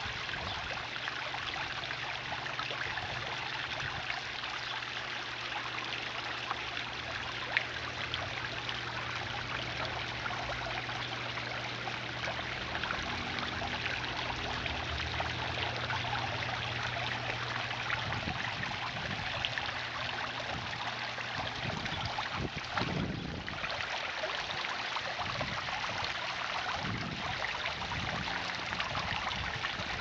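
Garden pond fountain spraying and water trickling over a small stacked-stone waterfall: a steady splashing, babbling water sound.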